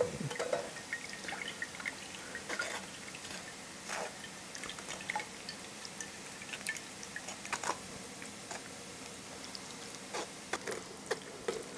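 A metal spoon pressing and scraping soaked tamarind pulp through a stainless steel mesh strainer, with tamarind juice dripping into a glass bowl below. The sound is a quiet run of scattered small clicks and drips.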